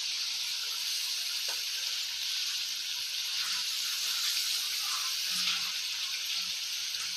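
Thick masala gravy with meat koftas and potatoes sizzling steadily in a wok as it is stirred with a silicone spatula.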